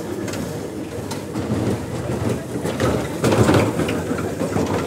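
Children's frog-shaped ride in motion, its wheeled cars rolling around a concrete track with a steady rumble and scattered clattering clicks, louder for a moment a little past the middle.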